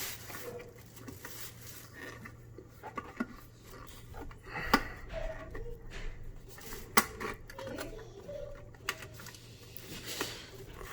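Hands pulling the power cord through the garbage disposal's wiring opening: scattered small clicks, taps and rubbing of cable against the unit's casing, with two sharper clicks about 5 and 7 seconds in.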